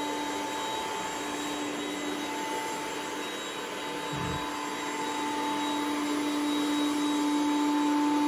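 Ecovacs Deebot T8 Power robot vacuum running on its zigzag cleaning pass over a wood-laminate floor: a steady motor hum with a constant whine, growing louder in the second half as it comes nearer. One soft low bump about halfway.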